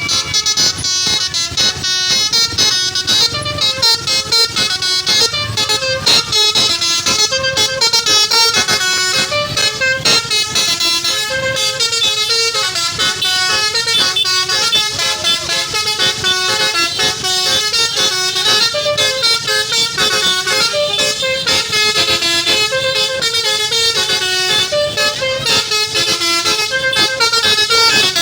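Bus basuri telolet horn, a multi-tone horn set, playing a running melody of short stepping notes without a break.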